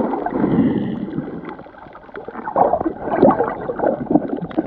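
Muffled underwater gurgling and sloshing, heard through a camera held below the surface, with scattered faint clicks. It dips about two seconds in and swells again after.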